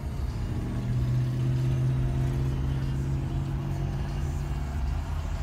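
Steady low engine drone of road traffic heard from inside a car's cabin. It swells in about half a second in and eases off near the end.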